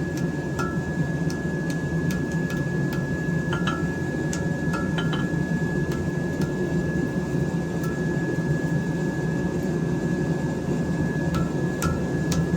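Light, irregular hammer taps on a hot steel knife blade as it is bent into a downward curve, each tap ringing briefly at one pitch. The taps come in clusters about a third of the way in and near the end, over a steady low rumble.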